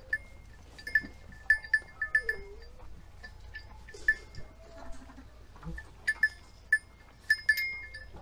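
Sheep and lambs bleating a few times, short and faint, among short sharp ringing clicks that come repeatedly in clusters and are the loudest sounds.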